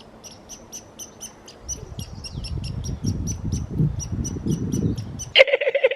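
A wild animal chirping rapidly, short high chirps repeating about four times a second, over a low rumble that starts about two seconds in. Near the end the chirping stops and a loud, wavering tone cuts in.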